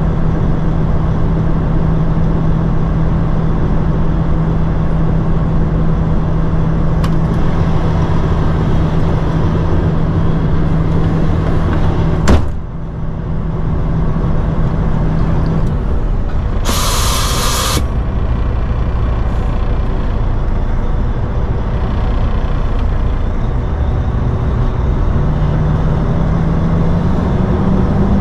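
Road train's diesel engine idling, heard from the cab, with a sharp click about twelve seconds in and a hiss of released air lasting about a second a few seconds later. Near the end the engine note rises as the truck pulls away.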